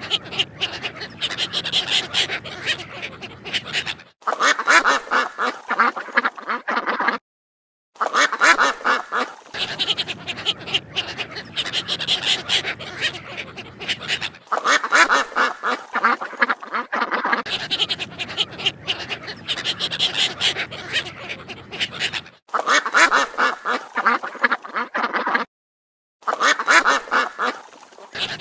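Ducks quacking in quick, repeated series. Several recordings are joined one after another, with two brief moments of dead silence between them.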